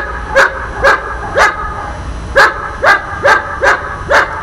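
A protection-trained dog barking in a steady, rapid series of about two barks a second, with a pause of about a second midway.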